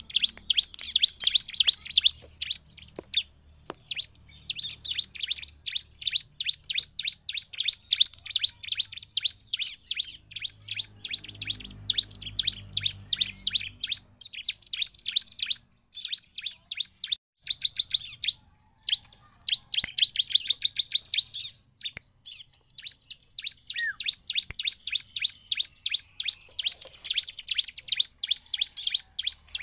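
Bar-winged prinia (ciblek) singing in fast runs of short, sharp, high chirps, several a second, with a few brief pauses.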